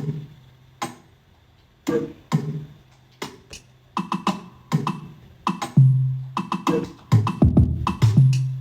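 Afrobeats percussion loop playing back from FL Studio: sparse, crisp percussion hits at first, growing denser from about four seconds in, with deep low hits joining later.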